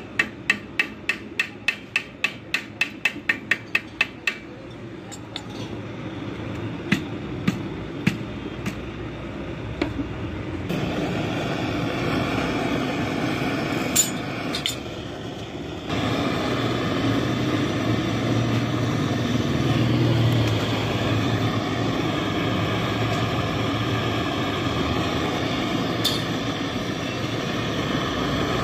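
A flat wire brush tapped rapidly against a car radiator's metal top tank, about five sharp taps a second, then a few scattered knocks. From about eleven seconds a hand-held nozzle gives a steady rushing hiss, which gets louder at sixteen seconds.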